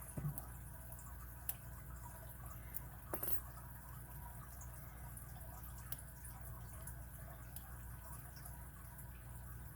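Faint, sparse clicks and a short scrape of a homemade lock pick working the pin stack of an Abus 41/45 five-pin padlock under tension, over a steady low hum.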